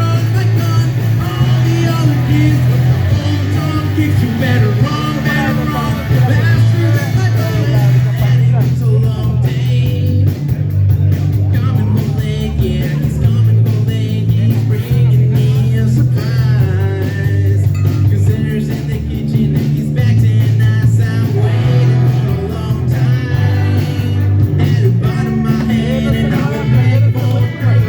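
Live rock band playing: electric guitar from a Les Paul Standard, bass and drums, with a singer's voice over a steady bass line. The drums grow busier about eight seconds in.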